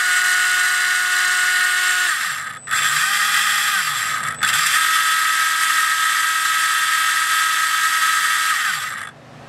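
ORCA Blitreme 3 brushless RC motor spinning its 30-tooth pinion against a spur gear on a motor test rig during an automatic test run: a steady high whine with gear noise. It cuts out briefly twice with a lower-pitched stretch between, holds steady again, then winds down and stops about nine seconds in.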